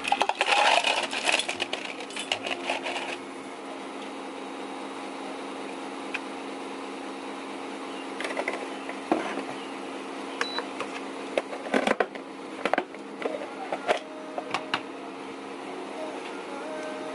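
Ice cubes tipped from a metal scoop into a plastic cup, clattering for about three seconds. Then a steady low hum with scattered light clicks and knocks as milk is poured over the ice.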